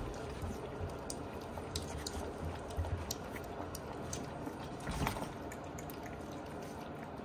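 Several Shiba Inu puppies lapping thin, milky weaning food from a shallow dish: scattered small wet licking clicks, with a soft bump about five seconds in.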